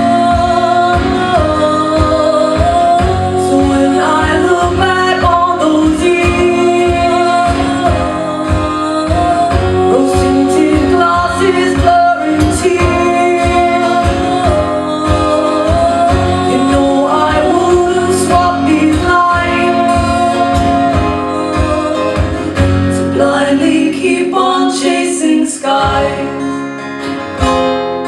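Live folk song: female voices singing a melody over strummed acoustic guitar with a steady rhythm. About 25 seconds in, the singing stops and the guitar strumming carries on alone.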